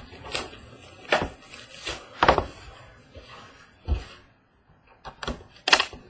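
Hands unwrapping and opening a cardboard box of trading card packs: a string of separate crinkles, scrapes and knocks of cardboard and plastic wrap against the table, with a dull thump about four seconds in.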